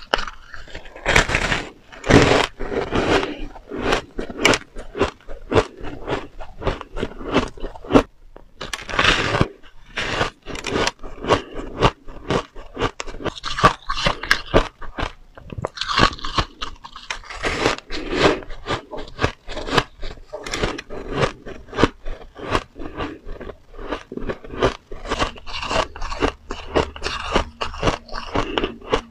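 Close-miked crunching of soft shaved ice being bitten and chewed: a dense, irregular run of crisp crunches.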